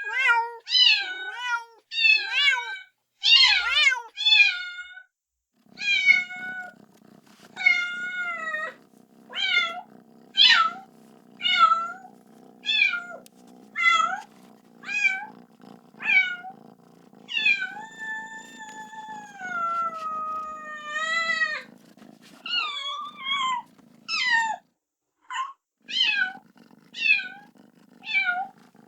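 Kitten meowing over and over, about one high-pitched meow a second, calling for its mother, with one long drawn-out meow past the halfway point. A low steady hum runs beneath for most of it.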